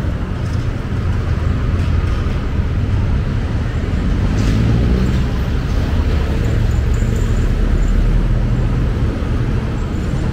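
City street traffic: a steady low rumble of vehicle engines.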